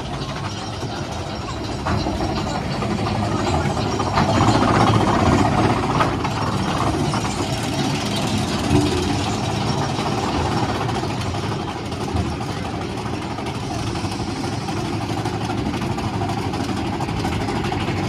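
Big Thunder Mountain Railroad mine-train roller coaster cars rolling along their track, with a continuous low clatter and rush of air. It grows louder for a few seconds about four seconds in, then settles back.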